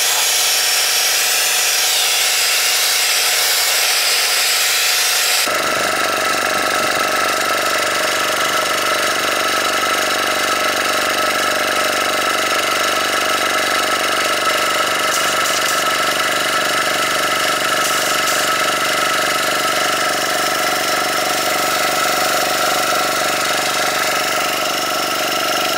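A Soviet diaphragm air compressor running. For about the first five seconds a pneumatic spray gun hisses loudly with compressed air; after an abrupt change it becomes the compressor's steady hum as it pumps up a car tyre directly through a tyre inflator with a gauge.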